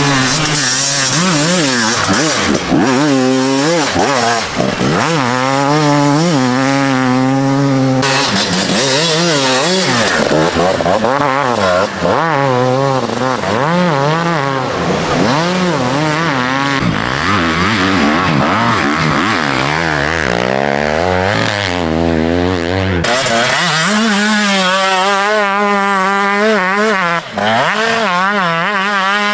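Enduro dirt bikes revving hard through deep sand, engine pitch rising and falling again and again as the throttle is opened and shut. The sound changes abruptly twice as one bike gives way to another.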